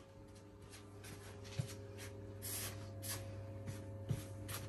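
Silicone spatula stirring dry flour and baking powder in a plastic mixing bowl: irregular soft scrapes and rubs, with two light knocks against the bowl, over a steady low hum.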